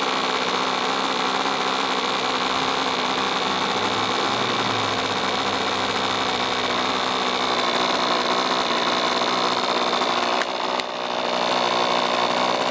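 Small model-airplane engine running steadily at a constant speed, with a brief dip in level about ten seconds in.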